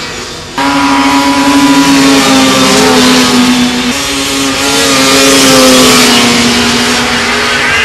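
Snowmobile engines running at high revs as sleds climb a snowy slope, a steady engine whine. It jumps louder about half a second in and shifts pitch near four seconds.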